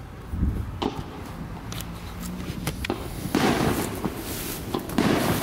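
Aerial fireworks going off. A low boom comes shortly after the start, then scattered sharp pops, then from about three seconds in a dense spray of rapid pops and crackles from the exploding shells.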